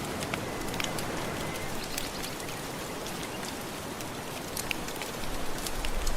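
Fire crackling with scattered sharp pops over a steady wash of gentle ocean surf, which swells louder near the end.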